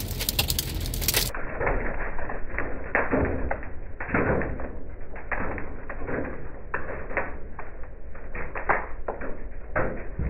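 Microburst storm wind gusting against a pickup truck, heard from inside the cab, with a low rumble and irregular taps and knocks against the body and glass several times a second.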